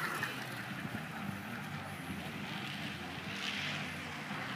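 Steady outdoor background noise: wind on the microphone with a faint low hum underneath, and no distinct event standing out.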